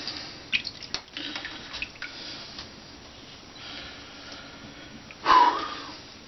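Water at a bathroom sink splashing and dripping while a straight razor is rinsed, with several small sharp clicks in the first two seconds. A short, loud rush of noise about five seconds in.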